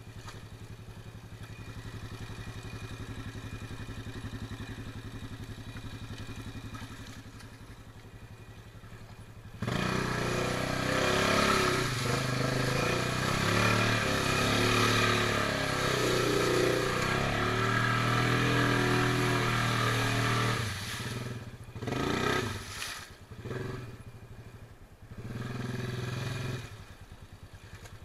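2011 Honda Rincon 680 ATV's single-cylinder engine idling, then revved hard about a third of the way in for around ten seconds while the quad churns in swamp mud, followed by a few shorter throttle blips.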